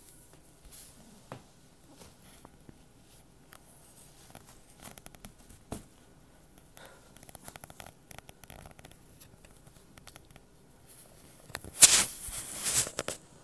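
A cat biting and clawing at a plush toy mouse on a rug: scattered soft clicks and rustles, with a louder burst of scratchy rustling near the end.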